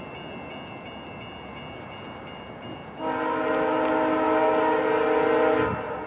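VIA Rail locomotive air horn on an approaching passenger train, sounding one long multi-note chord about three seconds in that stops sharply.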